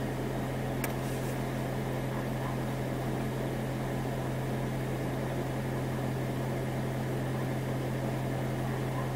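Steady mechanical hum with a strong, unchanging low drone, and a single sharp click about a second in.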